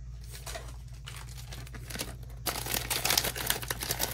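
Crinkly plastic blind bag being handled and pulled open, a dense crackling that starts about two and a half seconds in after only faint rustling.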